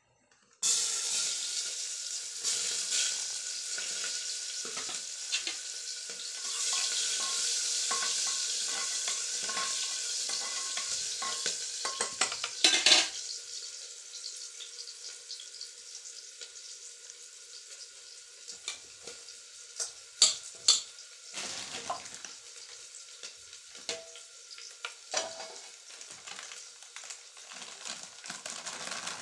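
Food frying in hot oil in a metal pan on a gas stove: a loud sizzle starts suddenly about half a second in and settles to a quieter sizzle after about thirteen seconds. A few clinks of a spoon against the pan come with the stirring.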